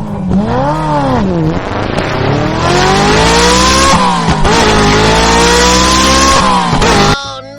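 Car engine revving, its pitch swooping up and down, then accelerating in long rising pulls with a short dip between them, cutting off suddenly about seven seconds in.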